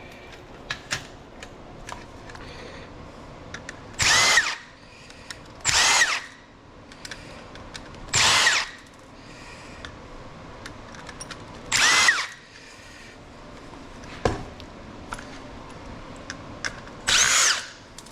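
Cordless drill-driver run in five short bursts, each spinning up and winding down, backing screws out of an electronics housing. Small clicks and clatter of parts handled in between.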